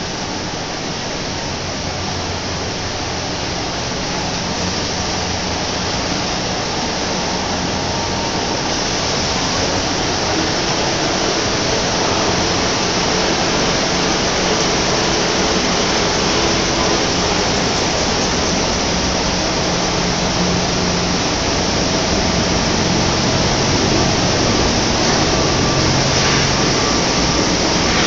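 Tissue paper making machinery running: a steady rushing mechanical noise with a low hum, slowly getting louder.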